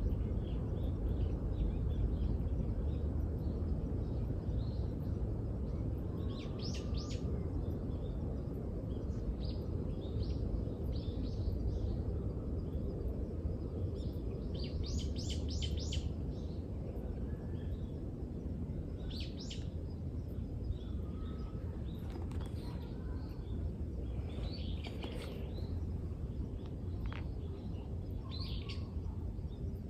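Wild birds chirping in short scattered bursts over a steady low outdoor rumble.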